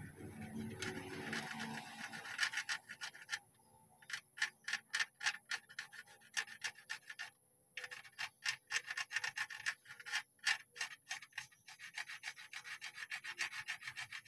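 Graphite pencil scratching back and forth over paper pressed on a stamped steel chassis number, in quick strokes about four a second with two short pauses: a pencil rubbing being taken of the number.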